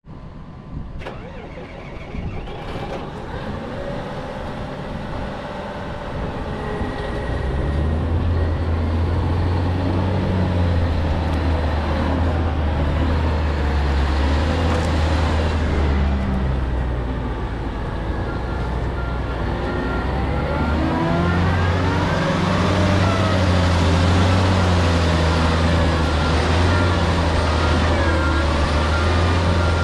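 Diesel engine of a Komatsu HM400-5 articulated haul truck running, building to a heavy low steady drone over the first several seconds. The engine note climbs about two-thirds of the way through, as it revs up.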